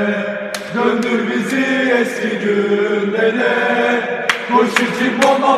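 Group of men chanting a new football supporters' song in unison, with hand claps about twice a second that pause midway and come back near the end.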